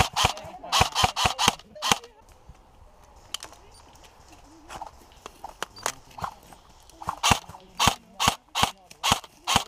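Airsoft guns firing single shots: a quick string of about five in the first two seconds, a few scattered shots in a lull, then steady shots about two a second from about seven seconds in.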